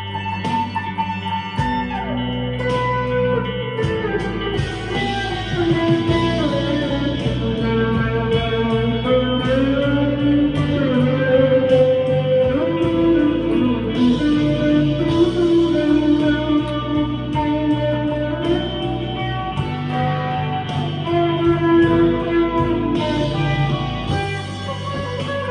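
Electric guitar, a Harley Benton CST-24, played through a Vox AV15 amp on its crunch channel with reverb, delay and chorus. It plays melodic lines of held notes, with bends and slides in pitch.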